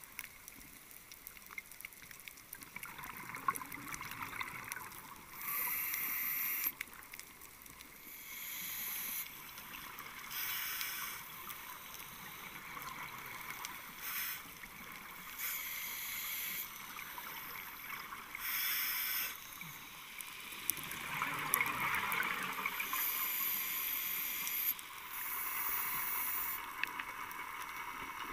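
Scuba breathing heard through an underwater camera housing: the regulator hisses and exhaled bubbles rush past in repeated bursts a second or two long, every two to three seconds, over a faint steady underwater hiss.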